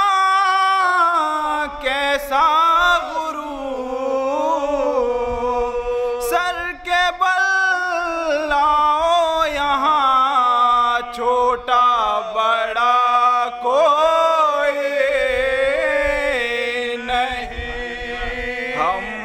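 A man's voice chanting an Urdu devotional mourning recitation (soz) into a microphone, unaccompanied, in long held notes that bend and waver in pitch.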